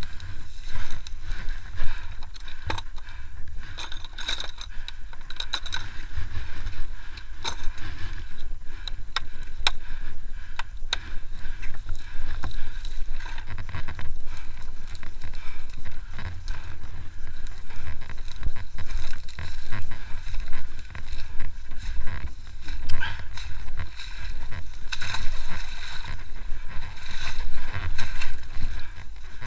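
Engine of an IRBIS Mukhtar motorized tow unit running steadily, with frequent rattles and knocks as it jolts over rough, tussocky ground.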